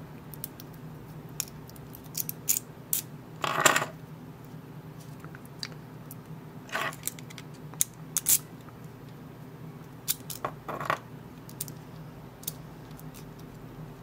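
Small metal clicks and clinks, scattered at irregular intervals, from a Mul-T-Lock lock cylinder, its key and a shim being handled, with the loudest cluster about four seconds in.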